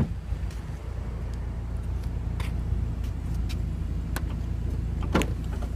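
A BMW X1 door shuts with a sharp knock, then a steady low hum with a few faint ticks, and a click about five seconds in as the tailgate's release switch is pressed and the latch lets go.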